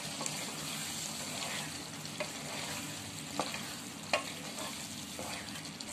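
Mutton curry with tomatoes sizzling in a pot as a spatula stirs it, with a few short knocks of the spatula against the pot.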